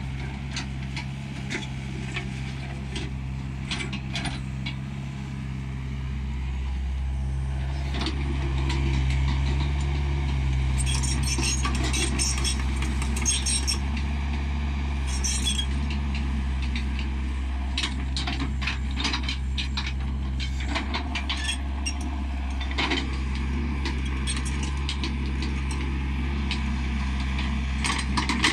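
Diesel engine of a Delta SC60-9 mini crawler excavator running steadily under digging load, growing louder several seconds in, with scattered clinks, rattles and scrapes of the bucket working through dry soil and stones.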